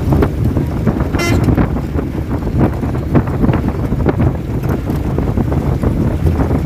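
Wind buffeting the microphone over the steady rumble of a moving vehicle, with a short horn-like toot a little over a second in.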